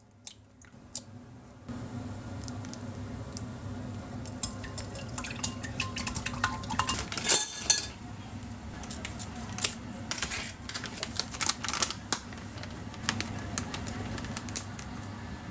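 Dishes and utensils clinking and knocking as they are handled, many short clatters over a steady low hum, with a short rush of noise about halfway through.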